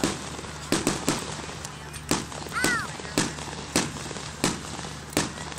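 Aerial fireworks shells bursting in quick succession, a sharp bang every half second to second, with a short falling whistle about two and a half seconds in.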